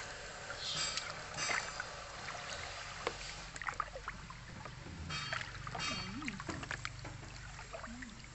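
Water splashing and sloshing in a plastic tub as a baby monkey swims and hands stir the water, with irregular small splashes over a steady lapping.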